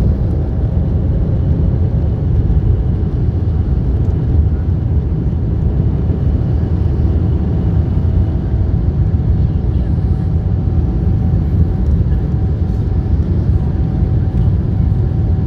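Steady low rumble of engine and airflow noise inside the cabin of a four-engine Airbus A340 airliner, with a faint steady whine on top.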